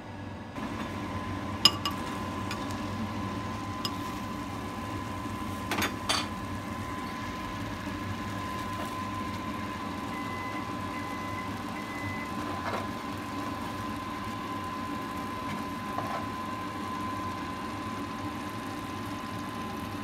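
Steady kitchen hum with a thin high whine while an earthenware pot of steamed egg cooks on a gas stove, with a few sharp clinks of the pot's ceramic lid about 2 and 6 seconds in.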